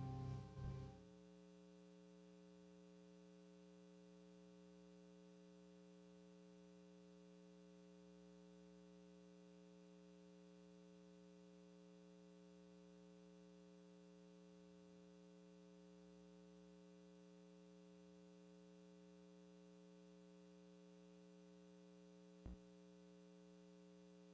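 Near silence with a steady electrical hum under it, after the last notes of music die away in the first second. A single faint knock comes near the end.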